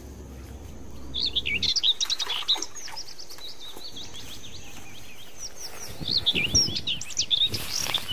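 Small birds chirping and twittering in rapid, quickly sweeping calls, starting about a second in; a short rush of noise comes near the end.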